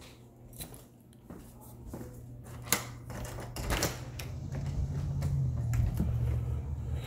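Scattered clicks and knocks of footsteps and phone handling as someone walks through a house and out a door. A low steady hum comes up about four seconds in.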